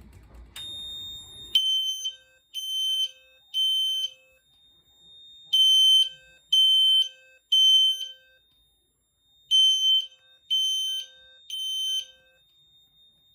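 Fire alarm horn sounding the temporal-3 evacuation pattern: three blasts of a high tone near 3 kHz, a pause, then three more, repeating. This is the System Sensor P2WL horn strobe set to its 3 kHz tone, with a fainter steady high tone carrying on between the groups.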